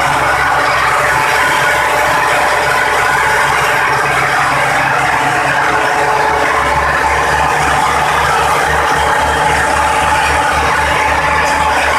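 Old Belarus tractor diesel engine running steadily, belt-driving a flour mill (aata chakki) as it grinds grain into flour. A loud, even mechanical noise.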